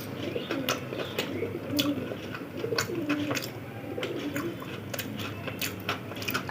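Pigeons cooing in short low phrases, repeated throughout, with scattered soft clicks from eating.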